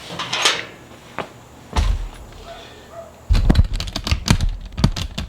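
Metal knocks and clanks as motorcycle exhaust pipes and their mounting hardware are handled and fitted: a few light clicks, a thump about two seconds in, then a quick run of knocks in the last two seconds.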